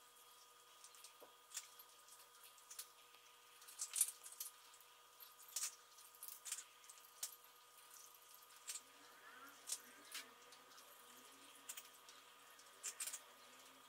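Cat crunching dry kibble from its dish: faint, irregular crisp crunches, some in quick little clusters.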